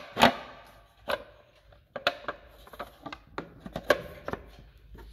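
Irregular sharp clicks and knocks, about ten in all, as the hard plastic parts and casing of a water ionizer are handled.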